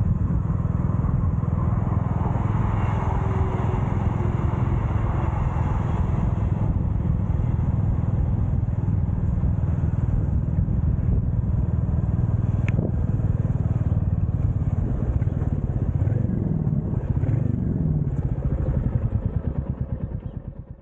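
Royal Enfield Classic 350's single-cylinder engine running under way, a steady pulsing low rumble. Its pitch shifts up and down a few times near the end, and then the sound fades out.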